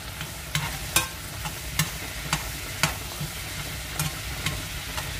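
A metal spoon stirring and clinking against a metal pot about seven times at uneven intervals, over the steady sizzle of butter frying with garlic and thyme.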